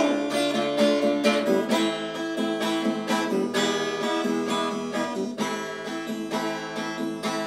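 Acoustic guitar strummed in a steady rhythm of chords, an instrumental passage between sung verses of a song.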